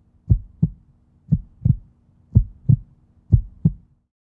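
Heartbeat sound effect: four paired lub-dub beats about a second apart over a faint low hum, stopping about four seconds in.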